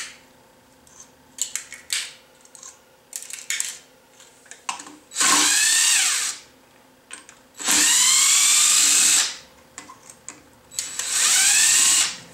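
DeWalt cordless power driver with a 10 mm socket spinning out motorcycle clutch spring bolts in three runs of one to two seconds each. The motor whines up in pitch as it spins up and drops as it stops, with light metal clicks of the socket and bolts in between.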